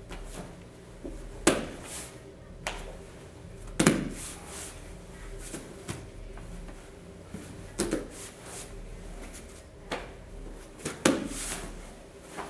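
Thuds and slaps of hands and bodies landing on a foam grappling mat during jiu-jitsu mount drills, with shuffling and cloth movement between. Four of the impacts are louder than the rest, spread a few seconds apart.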